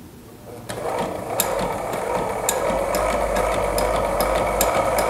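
Sailrite LSZ-1 Ultrafeed walking-foot sewing machine starting up about a second in and stitching steadily through four layers of leather with piping. The machine's running sound carries sharp clicks a few times a second.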